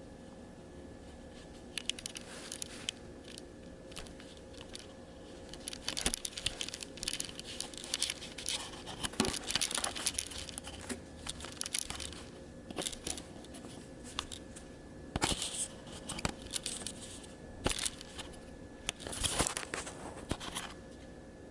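Rustling and crinkling handling noise with many sharp clicks, coming in irregular spells, over a faint steady hum.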